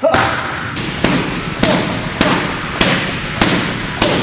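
Boxing gloves striking hand-held focus mitts in a steady rhythm of punches, about seven sharp smacks a little under two a second, each with a short echo.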